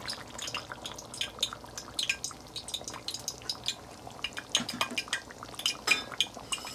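Frying pan of hot peanut oil crackling and spitting in many small irregular pops, with light clinks of utensils against the pan.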